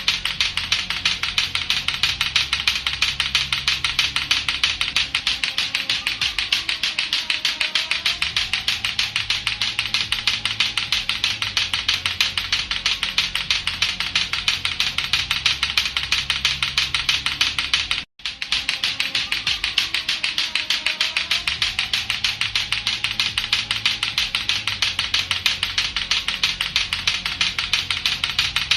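Latto-latto clacker toy: two hard plastic balls on a string knocking together in a fast, steady run of sharp clacks. The clacking cuts out for a split second about two thirds of the way through, then carries on.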